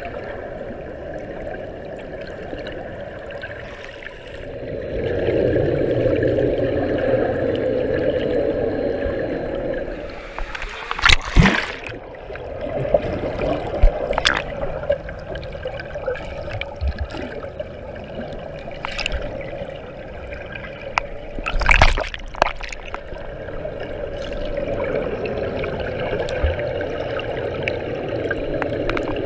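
Pool water heard underwater through an action camera's waterproof housing: a muffled rushing and bubbling from a swimmer's strokes, louder for a few seconds in the first third. A few sharp splashy knocks come later, two of them close together in the middle.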